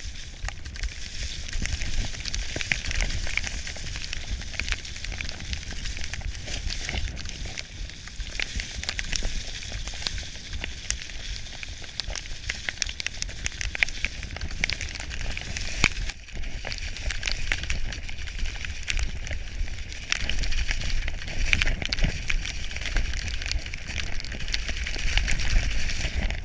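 Specialized Demo 7 downhill mountain bike descending a dirt track at speed: tyres hissing and crackling over grit and small stones, with dense little clicks and rattles from the bike over the bumps. Wind buffets the microphone as a low rumble underneath.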